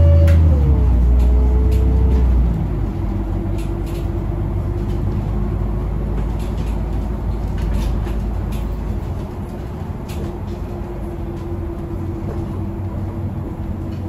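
Iveco Urbanway 18 Mild Hybrid articulated bus on the move, heard from inside the cabin: a loud low engine drone that drops off about two and a half seconds in, with a tone that slides down near the start and then holds steady, and scattered clicks and rattles.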